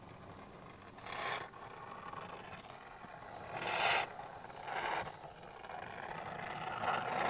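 Aerosol can of spray foam insulation hissing in short bursts as foam is squirted through its straw into the gaps between foam insulation boards, about a second, four and five seconds in, with a longer hiss building near the end.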